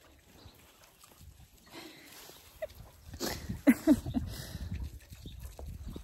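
Young black calf snuffling and nosing right at the microphone, with a few short low grunts and a sharp knock about halfway through.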